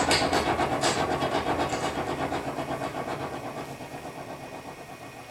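Recorded dance music with a steady, even beat, fading out gradually.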